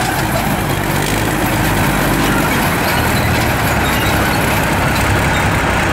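Full-size ISU-152 self-propelled gun driving slowly on its tracks, its V-2 V12 diesel engine running at a steady, loud low rumble. The sound cuts in suddenly at the start.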